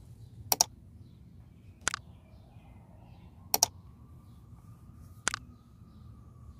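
Four sharp mouse-click sound effects, roughly a second and a half apart, the first and third doubled, from an on-screen like, share, subscribe and notification-bell animation.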